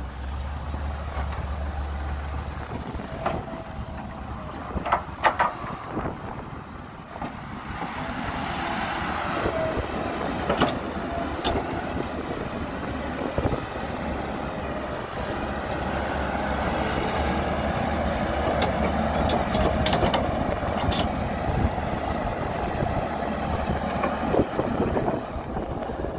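Caterpillar hydraulic excavator's diesel engine running under load as it digs and swings, growing louder from about eight seconds in, with several sharp metal clanks.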